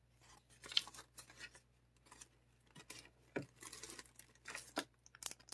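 Light handling of paper cardstock: soft rustles and small ticks as card pieces are moved and pressed down with foam adhesive dimensionals, with one louder tap about three and a half seconds in.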